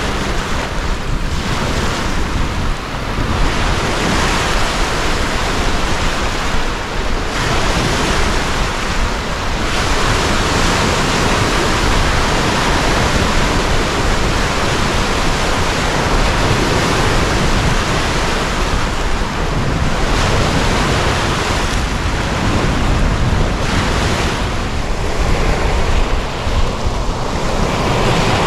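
Wind-driven waves breaking and washing over a stony lakeshore in repeated surges, with wind on the microphone.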